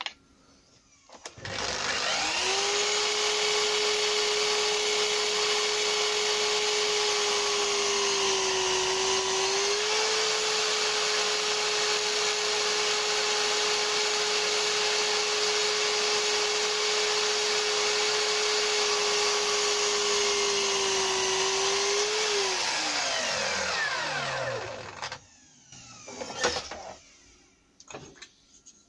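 Mitre saw switched on and running with a steady whine for about twenty seconds, its pitch sagging briefly about eight seconds in as the blade takes the cut. It is then switched off and winds down with a falling whine, followed by a few light handling clicks.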